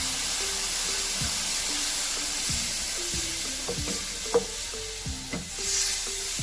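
Wheat flour roasted in ghee sizzling and spitting in a hot pan as water is stirred into it, a steady hiss, with a single short knock about four seconds in. Background music with a light beat plays underneath.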